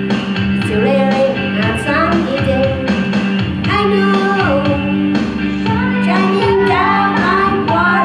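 A woman singing a pop-rock song into a handheld microphone over a karaoke backing track, with long held notes over the accompaniment.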